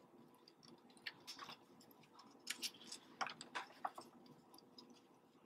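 Faint, scattered clicks and rustles of gloved hands handling a skin temperature probe and its adhesive cover as it is secured to a baby manikin, over a very faint steady hum.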